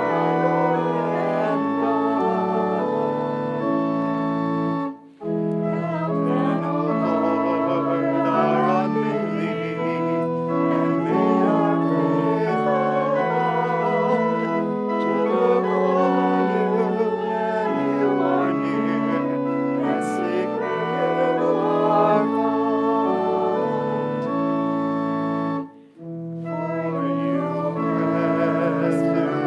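Church organ playing held chords that change step by step, with a wavering tremolo in the upper notes, breaking off briefly about five seconds in and again near the end.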